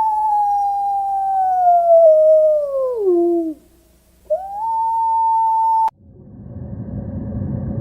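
A canine howling: one long howl that holds steady, then slides down in pitch and fades; a second howl rises and holds, then cuts off abruptly about six seconds in, and a low rumbling noise follows.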